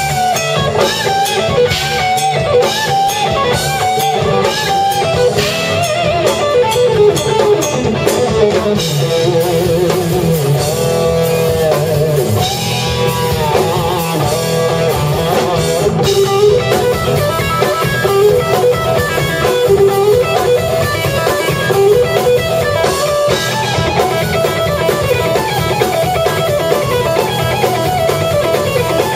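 Live rock band playing: electric guitar lead over bass guitar and a drum kit.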